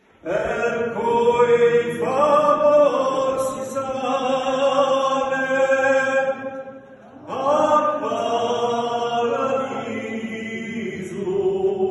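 A small group of men singing unaccompanied sacred chant in several parts, in the style of Corsican polyphony, holding long notes in a church. They break off for breath about six and a half seconds in and start again under a second later.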